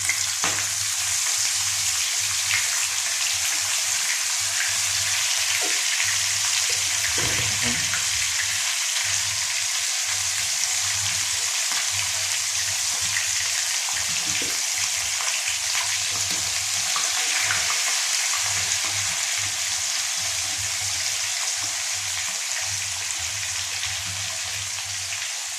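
Marinated fish pieces frying in a little hot oil in a pan: a steady sizzle with scattered small crackles, easing slightly toward the end.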